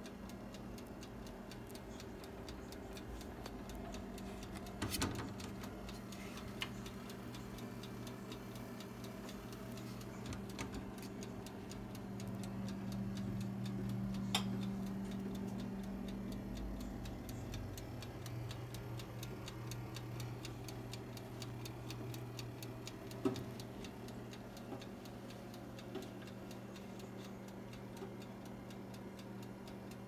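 Mechanical wind-up timer of a running Oster compact countertop toaster oven ticking steadily over a low, even hum from the oven, with a few louder single clicks.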